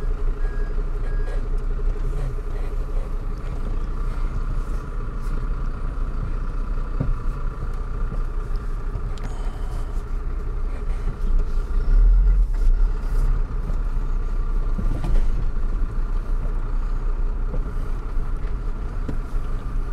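Truck engine running steadily, heard from inside the cab while the truck drives slowly over a rough dirt track, with a low rumble and a steady drone. The rumble is briefly louder about twelve seconds in.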